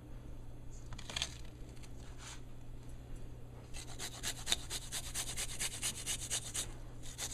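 A garlic clove being grated on a hand grater: a couple of separate scrapes, then a quick run of rasping strokes, about six a second, for some three seconds.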